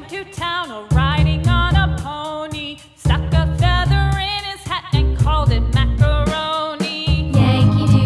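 Background music: an upbeat song with a sung melody over a steady bass beat.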